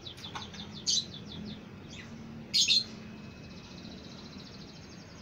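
Caged lovebirds chirping: two loud, sharp calls, about one second and two and a half seconds in, over a fast, steady, high trill.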